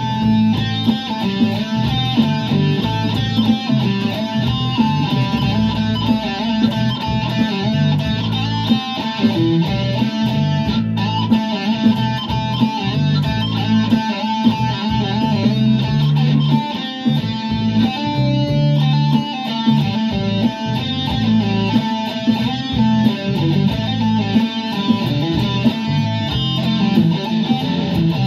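Electric guitar, a sunburst Les Paul-style solid-body, played continuously in riffs and single-note lines.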